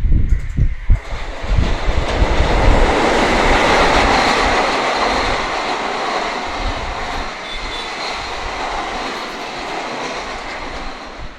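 Passenger train passing on the track, its wheels knocking over rail joints in the first couple of seconds, then a steady rolling rush that is loudest about four seconds in and slowly fades as it moves away.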